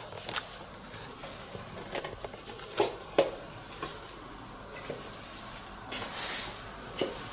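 Ground sausage-meat-and-bread stuffing being scraped and shaken out of a stainless steel food-processor bowl into a mixing bowl: soft scraping with a few light knocks of the metal bowl.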